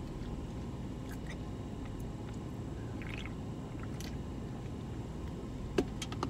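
A person chewing a protein bar, with small wet mouth clicks, and a short sip from a drink can about three seconds in, over a steady low hum inside a car.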